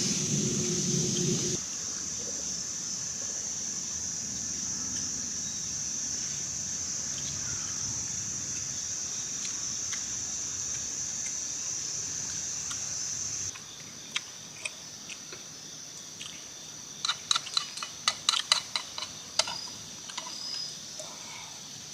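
Steady high-pitched insect chorus, louder for the first dozen seconds and then softer. A low rumble stops about a second and a half in. Near the end comes a quick run of light clicks and taps.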